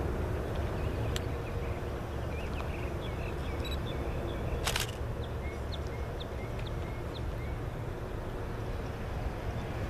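Steady low rumble of diesel locomotives running at a distance, with small birds chirping over it and a sharp click a little before the halfway point.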